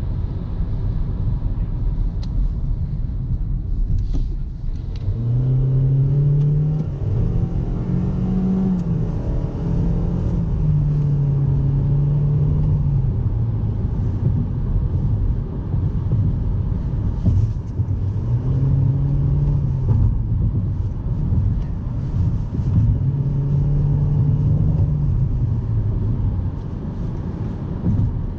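2018 Toyota Corolla LE's four-cylinder engine revving hard under acceleration, its pitch rising and falling in several surges, over a steady low road rumble.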